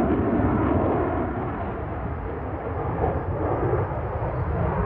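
Jet noise from a Boeing F-15QA's twin engines in flight: a loud, steady rumble that eases a little midway and builds again near the end.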